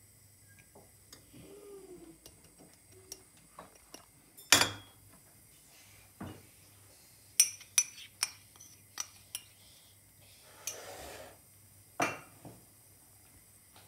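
Scattered clinks and knocks of a spice dish and utensils against a stainless steel pot as spices are tipped in. The loudest is a sharp knock about four and a half seconds in, followed later by a quick run of clinks and a short rustle.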